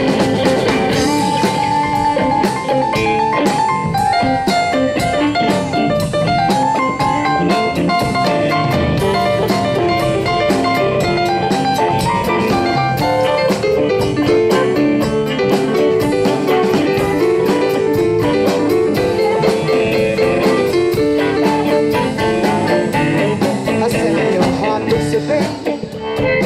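Live blues band playing an instrumental passage: electric guitar, bass and drum kit under a moving melodic lead line.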